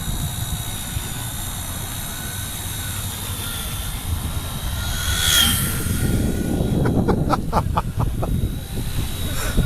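Small electric RC helicopter (Skyartec WASP 100 Nano CP) flying, its motor and rotors giving a steady high-pitched whine, with wind rumbling on the microphone. About halfway through it swells into a louder whoosh, and a run of quick clicks follows.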